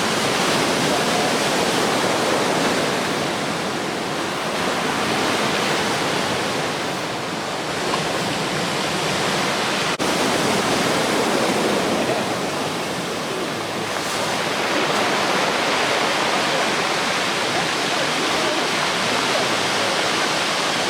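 Heavy surf from a typhoon swell breaking and washing on the beach, a continuous rush of water that swells and eases every few seconds.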